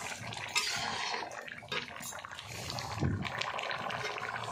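Drumstick-and-potato curry boiling hard in a steel kadhai, bubbling and steaming.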